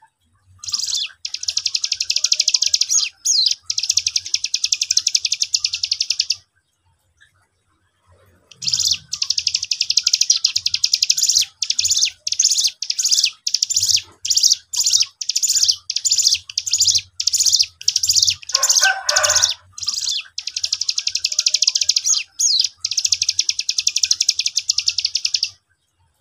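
A caged young cigun in full song, used as a lure to set other cigun calling: a fast, high, rattling trill in two long bouts, the first about six seconds, the second, after a short pause, about seventeen seconds. A brief lower, rougher sound breaks in about nineteen seconds in.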